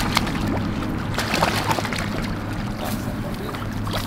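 A hooked bowfin splashing and thrashing in the shallows as it is hauled up the bank, with a few sharp splashes and rustles in the first second and a half. Under it runs a steady low hum, with wind on the microphone.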